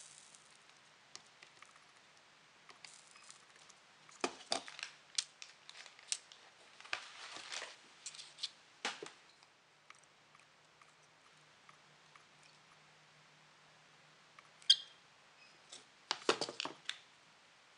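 Scattered small clicks, taps and rustles of pliers and small electronic parts being handled on a workbench, with a sharp click about fifteen seconds in and a quick cluster of clicks just after.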